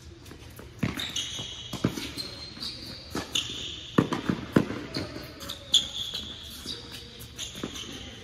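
Tennis rally on an indoor hard court: sharp pops of racquets striking the ball and the ball bouncing, several in all, with rubber-soled shoes squeaking on the court between shots.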